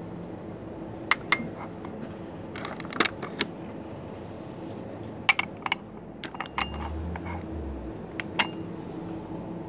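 Tulip-shaped Turkish tea glasses and their saucers clinking and clicking against each other as they are handled and a glass is set on a saucer: scattered sharp clinks in small groups, the loudest about five seconds in.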